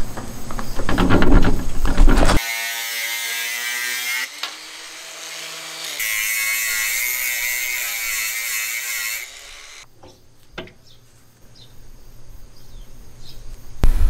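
Angle grinder with a thin cut-off disc running and cutting through a steel hex bolt held in a bench vise. It runs in two stretches, weaker for a couple of seconds in the middle, then dies away, and a single knock follows. Before it come clunks of the bolt being handled and set in the vise.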